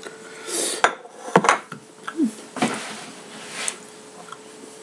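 Light clinks and knocks of a utensil against a plate or dish, with a few sharp ticks about a second in and scattered short clatters.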